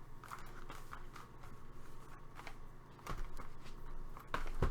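Dice being handled and rolled on a tabletop: faint scattered clicks and rustling, then a few sharper knocks about three seconds in and again near the end.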